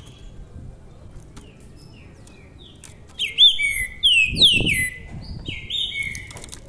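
Caged black songbird singing a loud run of whistled phrases with quick rising and falling slurs, starting about three seconds in and lasting about three seconds. Before the song there are only a few faint clicks.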